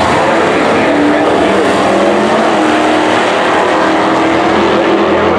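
Two Mopar muscle cars launching side by side off a drag-strip start line and accelerating away at full throttle. The engines run loud and continuous, their note climbing slightly in the first couple of seconds.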